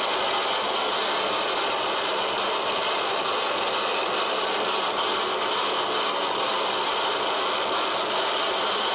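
Live harsh noise music (Japanoise): a dense, unbroken wall of distorted electronic noise, hissy and harsh, holding one steady level with no beat, melody or pauses.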